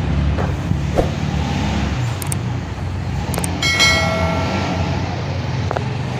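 TVS Apache RR310's single-cylinder engine running at low speed as the motorcycle is ridden up. A brief high-pitched tone sounds a little before the middle.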